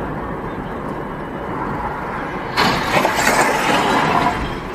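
Steady road noise heard from inside a car. About two and a half seconds in, a sudden loud crash starts and lasts nearly two seconds.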